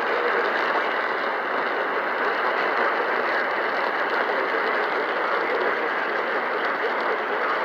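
Steady, crackly radio static from a receiver on a weak or empty signal.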